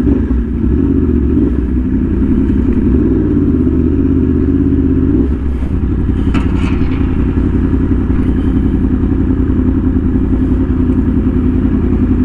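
Superbike engine running under way, its note rising and falling with the throttle for the first five seconds, then holding steady at cruise. A short clatter cuts in about six and a half seconds in.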